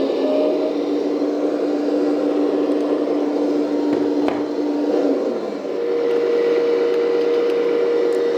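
1/14-scale RC hydraulic excavator running, a steady mechanical hum whose pitch steps up about five seconds in, with a single click a little after four seconds.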